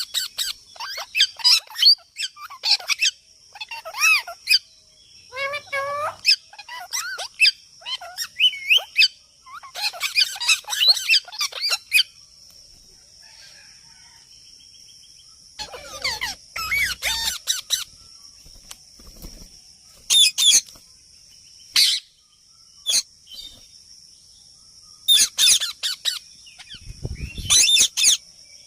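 Parrot chirping and squawking in clusters of quick calls that slide up and down in pitch, with pauses of a few seconds between groups.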